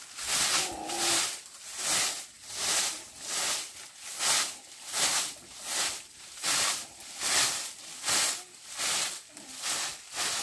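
A straw broom sweeping a packed-dirt floor in steady, even strokes, a swish about one and a half times a second.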